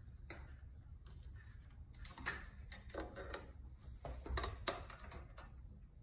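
Handling noise from work on a Minn Kota Ultrex trolling motor mount: scattered light clicks and knocks of hard plastic and metal parts, the sharpest a little before the end.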